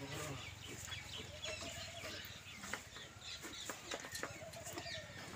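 A hen clucking, two drawn-out rising-and-falling calls, over faint short squirts and clicks of a buffalo being milked by hand into a metal pail.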